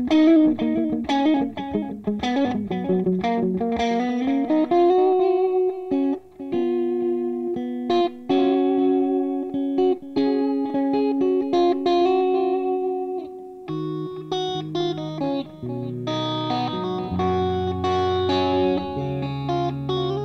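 Carvin DC400 electric guitar with a crunch tone, played through a combo amp's 1x12 Celestion Vintage 30 speaker: a quick lead line of picked notes with vibrato and a bend, then longer held notes, with lower notes stepping in over the last few seconds.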